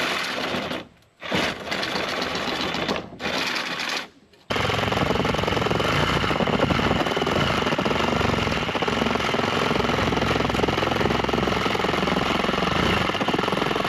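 Reciprocating saw (Sawzall) with a wood-with-nails blade cutting, in three short bursts and then a steady run of about nine seconds.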